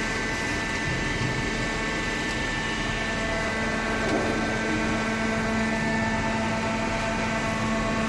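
Hydraulic cardboard baler's power unit running: a steady machine hum with a few constant whining tones over it.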